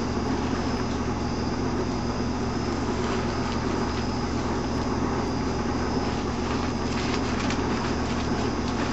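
Painter's tape being peeled off the painted aluminum hull of a jon boat, heard as a few faint rips a few seconds in, over a steady low hum.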